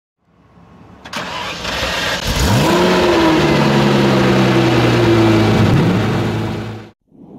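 Ferrari Testarossa's 4.9-litre flat-12 starting: it cranks, catches about two seconds in with a quick rise in revs, then settles into a steady idle. The sound cuts off abruptly near the end.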